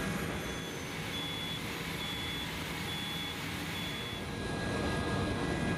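A high electronic warning beeper, like a vehicle's backup alarm, sounding five short beeps about once a second, over the low running of a pickup truck engine as it drives down the loading ramps.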